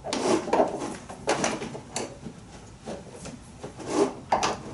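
Metal quick-release hose coupling being handled and pushed onto a quick-connect fitting on a pressure washer's outlet: a string of irregular clicks, scrapes and knocks.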